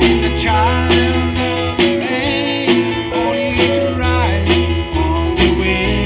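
Live country-gospel band playing: strummed acoustic guitar, bass guitar and drums keeping a steady beat, with a man's voice singing the melody.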